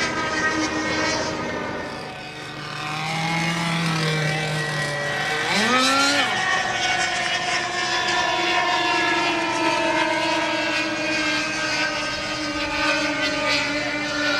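Radio-controlled model jet engines whining, several at once, as the models land and roll along the runway. About five to six seconds in, one engine's pitch rises sharply in a throttle burst, then holds high.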